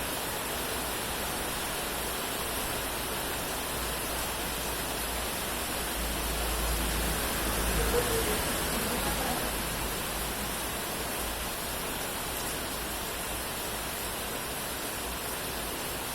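Steady heavy rain falling as a dense, even hiss. About midway a low rumble swells up and fades again.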